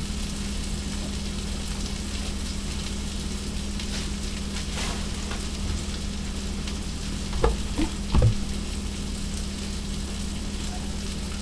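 Hamburger patties sizzling steadily in a cast iron skillet, over a steady low hum. A few short knocks come about two-thirds of the way through.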